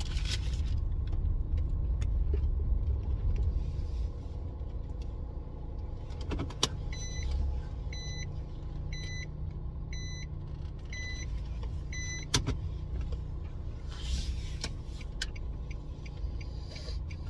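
Car running and moving slowly, heard from inside the cabin as a steady low rumble. About halfway through come six evenly spaced electronic beeps, about one a second, set between two sharp clicks.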